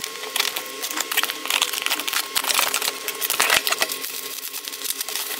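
Cardboard shipping box being cut open and unpacked: a dense, continuous crackling and clicking of packing tape, cardboard and plastic wrapping.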